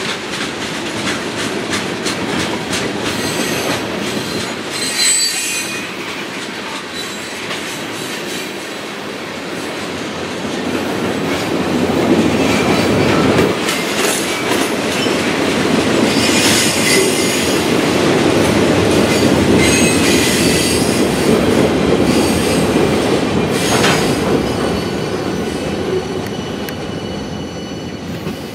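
Freight train of tank cars and boxcars rolling past at close range: a steady rumble of steel wheels on rail, with short high-pitched wheel squeals every few seconds. It fades in the last couple of seconds as the end of the train moves off.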